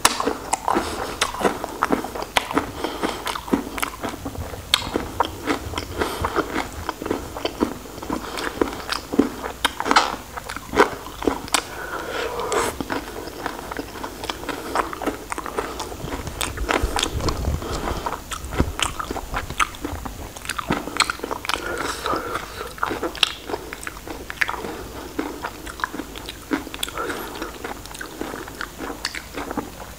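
Close-miked eating of raw shrimp: continuous biting and chewing with many irregular crunches.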